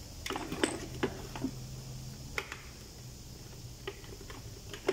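Irregular light clicks and knocks, about seven in all, of a fuel pump assembly's plastic and metal parts being handled and pried apart by hand.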